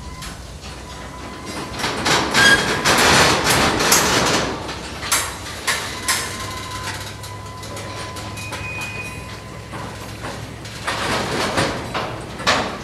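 Railroad cars moving on track: irregular metallic clanks and knocks, clustered a couple of seconds in and again near the end, over a thin steady whine and a low hum.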